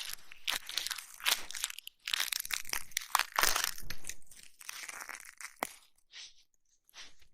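Close-up ASMR ear massage and cleaning sounds: crackling, crinkling rubbing and scratching right at the microphone, with sharp clicks. They thin out and almost stop for about a second near the end.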